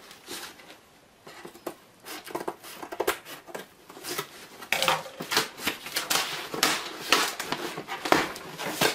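A cardboard shipping box being opened by hand: scattered taps and scrapes on the cardboard, then from about five seconds in a busier run of louder tearing and scraping as the packing tape is worked loose and the box is handled.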